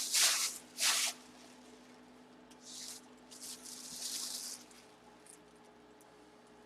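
Handling noise: short hissy rustles and scrapes, two sharp ones at the start and a softer cluster a couple of seconds in, over a faint steady hum.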